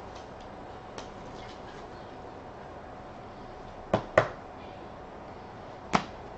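Sharp clicks of a clear hard plastic trading-card holder being handled: a faint click about a second in, two loud clicks in quick succession about four seconds in, and one more near the end.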